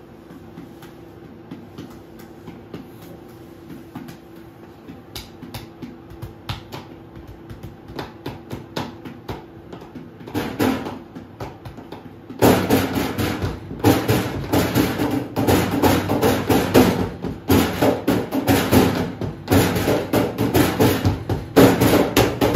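Found-sound score: a low steady hum with scattered clicks and knocks that come faster and faster. About halfway it breaks into a much louder, dense, rhythmic clatter of knocks.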